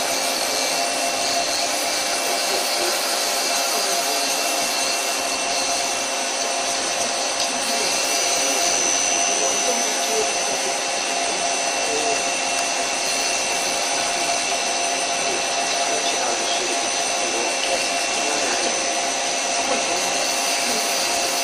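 Doosan CNC lathe running with its spindle at about 700 rpm: a steady machine hum and hiss with several steady whining tones. The spindle is slowed to this speed so the grooving tool's tip is not broken while it is touched off on the turning workpiece.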